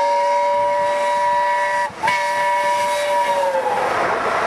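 Steam whistle of A1 Pacific locomotive 60163 Tornado passing at speed: two long blasts sounding a chord of several notes, with a brief break about two seconds in. The chord drops in pitch near the end as the engine goes by, and the rush of the train rises.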